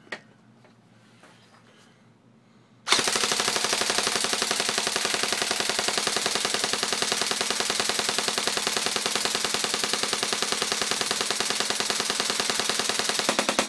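G&G Top Tech TR16 R4 Commando airsoft electric gun firing one long full-auto burst of tracer BBs, a fast even rattle of shots. It starts about three seconds in and cuts off suddenly near the end.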